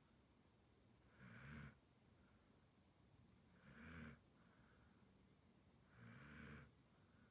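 A sleeping dog snoring faintly: three short snores, about two and a half seconds apart.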